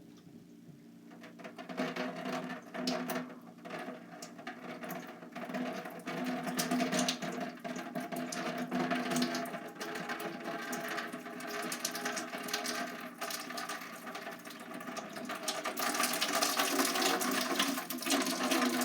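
Water running and splashing out of a loosened water-filter canister into a bucket as the canister is unscrewed, with clicks and knocks of the plastic housing being handled. It sets in about a second in and grows louder near the end.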